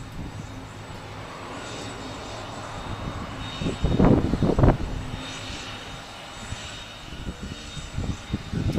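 A distant regional turboprop airliner running its engines on the runway, a steady hum, with two loud low bursts about four seconds in.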